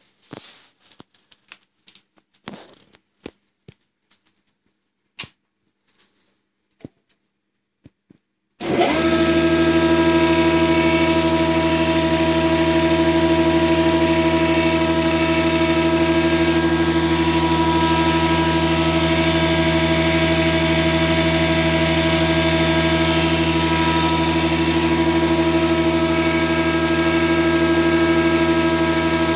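A few small clicks and taps, then about eight seconds in the Holzmann HOB 400V's electric gear motor, its gearbox opened, starts and runs loud and steady: a hum with a set of fixed whining gear tones that do not change. This is the gearbox noise the owner takes for a fault.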